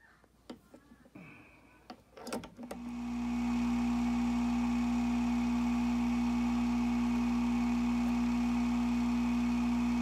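A few light taps and clicks of handling the dop and stone. About three seconds in, the faceting machine's lap motor starts up: a steady electric hum with one strong fixed tone that comes up in under a second and then runs evenly.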